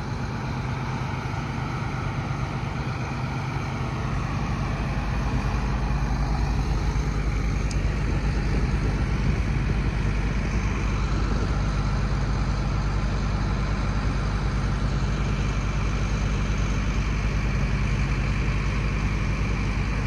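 A John Deere four-wheel-drive tractor's diesel engine running steadily at constant speed, growing a little louder about four seconds in.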